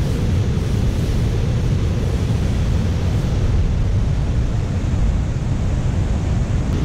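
Steady rush of a small waterfall cascading over rocks, with wind buffeting the microphone.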